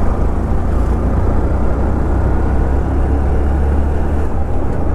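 Motorcycle engine running steadily while riding, a deep continuous rumble mixed with road noise.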